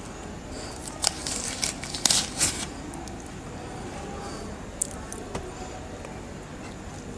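Close-up eating sounds of soft brownie with peanut butter: wet chewing and lip smacks in a cluster about a second in, then a few single smacks.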